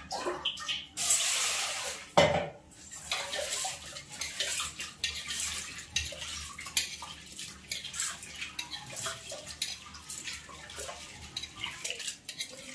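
Urad dal being washed by hand in a stainless steel pot of water: continual swishing and rubbing, with the grains and water clattering against the steel. There is a rush of water about a second in and a sharp metal clank just after.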